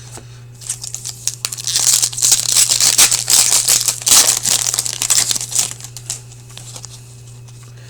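A foil trading-card pack wrapper being torn open and crinkled by hand. Dense crackling starts about a second in, is loudest in the middle and dies away after about six seconds, over a steady low electrical hum.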